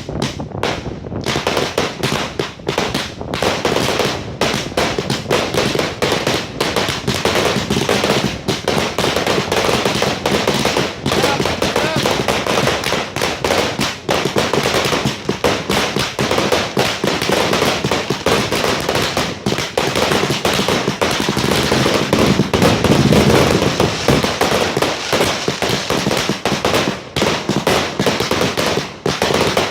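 Fireworks display going off in a dense, unbroken run of rapid bangs and crackling, with no pause. It grows loudest about three-quarters of the way through.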